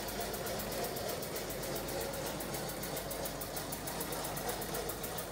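Mamod live-steam engine driving a Meccano locomotive, running with a fast, even beat of strokes, several a second, over a steady hiss.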